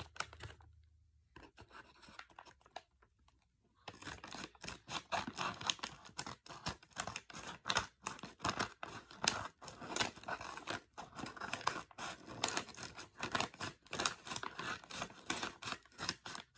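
Scissors cutting through a paper bag: after a quiet pause, a long run of quick snips with paper rustling begins about four seconds in.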